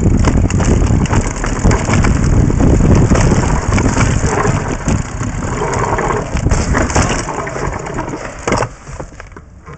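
Mountain bike rattling and clattering as it rolls over rough dirt singletrack, with dense clicks over a heavy low rumble. It dies down near the end as the bike stops.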